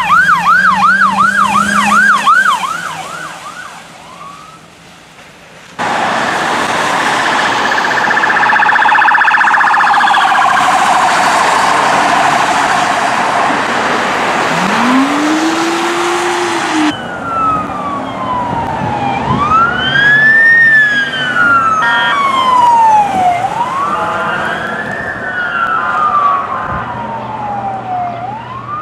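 Police car electronic sirens in a run of clips. A fast yelp fades away as the car passes. After a cut comes a loud stretch of siren over heavy road noise, with a brief low rising tone. After another cut a slow wail rises and falls about every four seconds.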